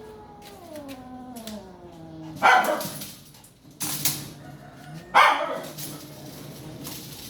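A long whine falling in pitch, then a dog barks twice, about two and a half and five seconds in.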